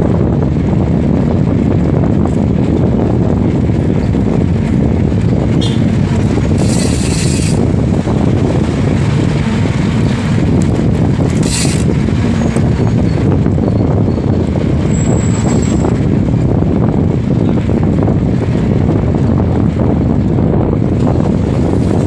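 Wind buffeting the microphone of a handlebar-mounted phone on a moving bicycle: a loud, steady rumbling roar. Brief bursts of hiss come about six and eleven seconds in.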